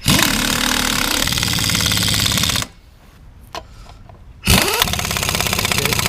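Impact wrench run in two bursts, hammering rapidly as it tightens nuts one after the other: a longer run of about two and a half seconds, then a shorter one about four and a half seconds in.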